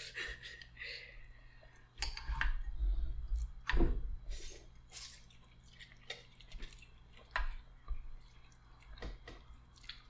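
Hot pot food being served: a ceramic soup spoon and chopsticks lift food and broth out of a metal pot, with broth dripping, light utensil clicks and a few dull thumps. Scattered eating noises run through it.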